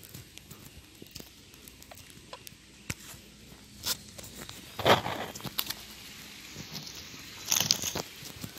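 Rustling and crinkling of a sack being handled on dry, leafy ground, with small scattered clicks and louder scuffing rustles about four, five and seven and a half seconds in.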